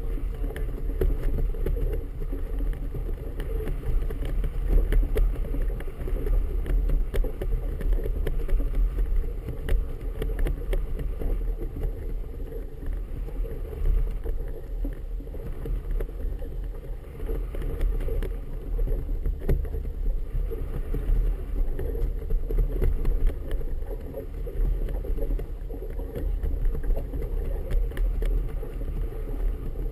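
Wind rumbling on the microphone of a GoPro camera aboard a boat, a low, uneven noise that swells and falls, with choppy harbour water lapping against the hull.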